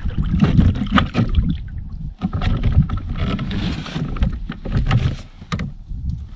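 A kayak being paddled: irregular splashes and knocks from the paddle and hull over a constant rumble of wind on the microphone.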